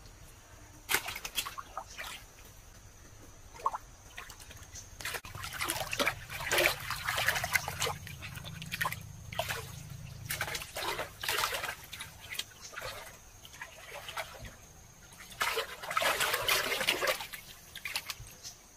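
Hands splashing and scooping through shallow muddy water in irregular sloshes and splashes, with busier stretches about a third of the way in and again near the end.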